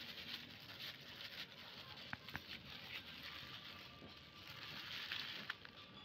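Thin plastic carrier bag and old plastic wrappers rustling and crinkling as they are handled, with a few sharp crackles.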